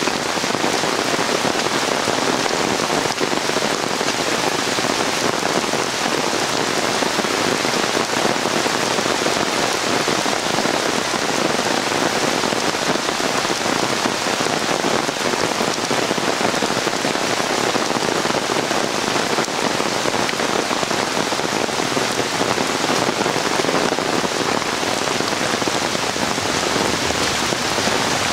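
Heavy rain pouring steadily onto trees and flooded ground, an unbroken hiss of rainfall.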